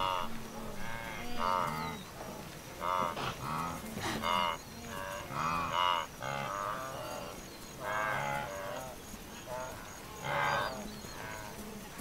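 Wildebeest herd calling: many short grunting calls from several animals, one after another, some rising and falling in pitch.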